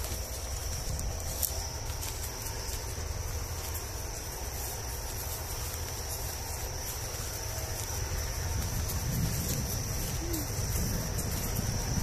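Insects trilling in one steady, unbroken high-pitched note, over a low rumble.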